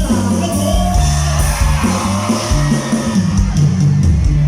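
Live band music with steady bass notes and drums, a voice heard over it as a song gets under way.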